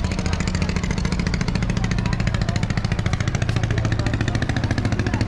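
An engine running steadily with a fast, even chugging and a low hum; the hum shifts lower about three seconds in.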